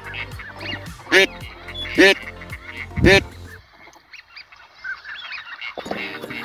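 Duck quacking: three loud honking quacks, each about a second apart. Small birds chirp under them.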